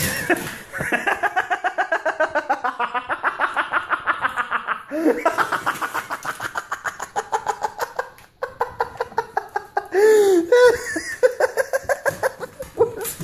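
A person laughing hard and almost without a break, in quick pulses of about five a second, pausing briefly and then going on.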